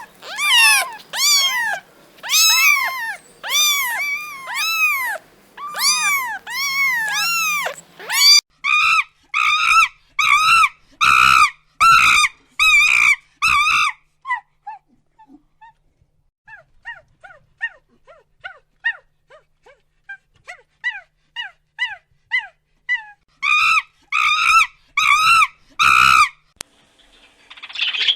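A dog yelping and whining in quick runs of short, high-pitched cries. The cries arch up and down in pitch at first, turn faint for a stretch in the middle, then come loud again near the end.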